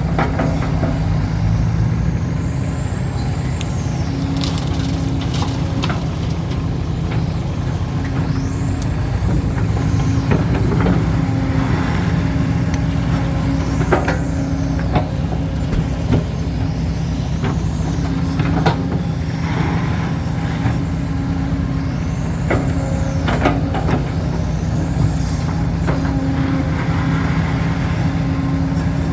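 Excavator's diesel engine running steadily under load, with a rising-then-falling hydraulic whine every few seconds and occasional sharp clanks as the machine digs and loads soil.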